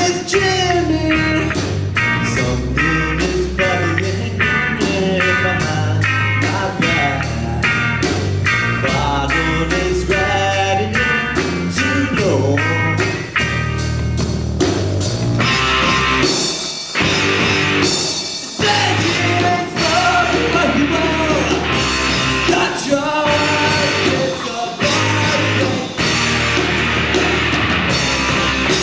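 Live rock band playing a song with a singing voice over drums, bass and guitar, on a steady beat. About halfway through the music gets fuller and brighter.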